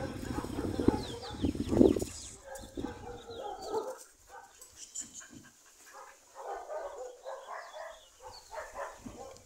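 Dogs barking on and off, a few short barks at a time.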